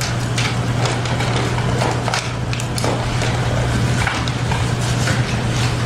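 Footsteps and rustling paper over a steady low electrical or ventilation hum in the room, with irregular short ticks about two a second.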